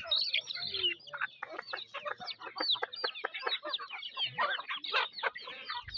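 A flock of domestic chickens clucking and calling, many short high calls overlapping one another.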